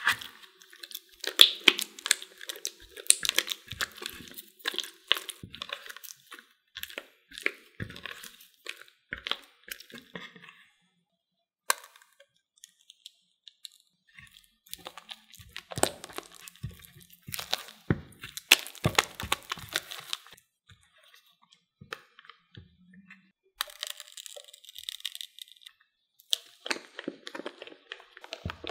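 Silicone spatula stirring thick mascarpone cream in a glass bowl: sticky, crackly squelches and quick clicks as it scrapes and taps the glass. It comes in bursts with a couple of short pauses.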